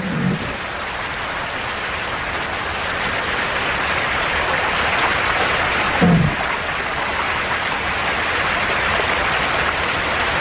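Steady rushing of a river's falls and rapids, with one brief low sound about six seconds in.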